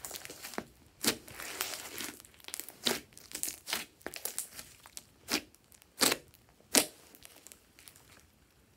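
Glossy slime squeezed and stretched by hand, giving a series of sharp pops and crackly squishes. The sounds grow quieter for the last couple of seconds.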